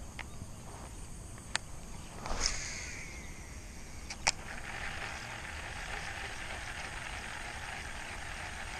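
Baitcasting reel during a cast: a swish with a brief whir of the spool about two and a half seconds in, a sharp click a little after four seconds as the reel is engaged, then a steady whir of the reel being wound in.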